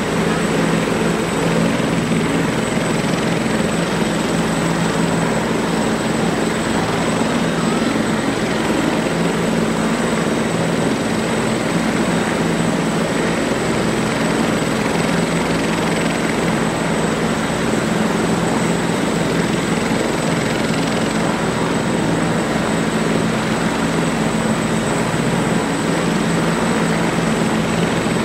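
Bell 412EPI twin-turbine helicopter running on the ground with its rotor turning: a steady turbine and rotor drone with a constant high-pitched whine.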